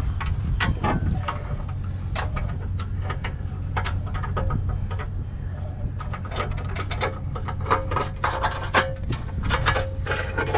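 A vehicle engine running steadily, with frequent metallic clanks and clicks over it, and a faint steady whine joining in about halfway through.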